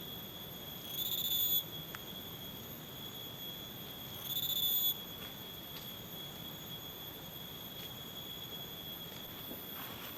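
A forest insect's steady high-pitched drone, swelling louder twice for about half a second, about a second in and again about four and a half seconds in.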